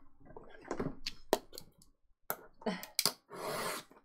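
Trading cards and a cardboard hobby box being handled on a table: a few light taps and knocks, then a short rustle a little after three seconds in.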